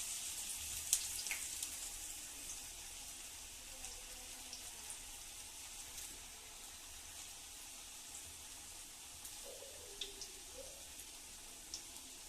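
Lentil vadas deep-frying in hot oil: a steady sizzle with scattered small pops and crackles, a little louder in the first couple of seconds.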